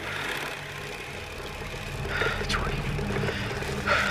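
Film soundtrack: a steady rushing background with low sustained tones, and a man's short exclamations about two seconds in and again near the end.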